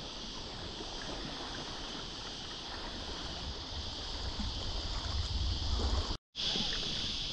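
Water lapping around a packraft on a calm river, with a steady high insect drone behind it. A low rumble builds over the last few seconds, and the sound cuts out briefly near the end.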